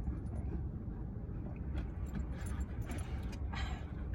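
Eating sounds: scattered light clicks and rustles of food and wrapper being handled, with a short crunch about three and a half seconds in, over a steady low rumble.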